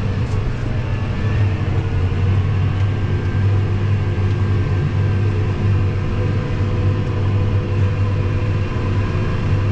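Case IH 400 tracked tractor's diesel engine running steadily under ploughing load, heard from inside the cab as a low, even drone.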